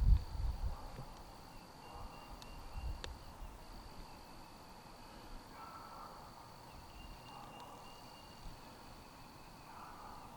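Outdoor ambience of insects trilling: a steady high-pitched trill broken by a few short pauses, over a fainter second trill, with low rumbles on the microphone in the first second or so.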